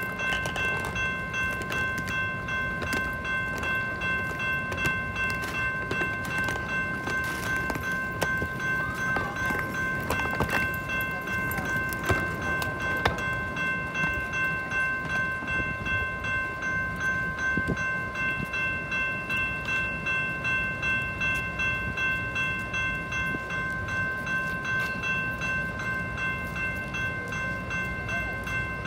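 Railroad crossing warning bell ringing without a break in an even, repeating rhythm while the crossing is active.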